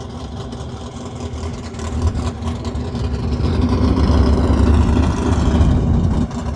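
Race car engine at full throttle on a top-speed run, growing louder over a few seconds and falling in pitch, then dropping off near the end.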